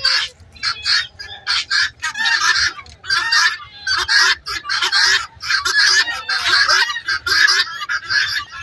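Farmyard poultry calling loudly and repeatedly, about two harsh calls a second, with many calls overlapping.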